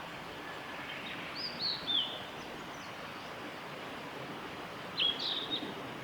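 Male blue-and-white flycatcher singing: a phrase of three falling, slurred whistles about a second in, then a short, higher phrase near the end, over a steady rushing background noise.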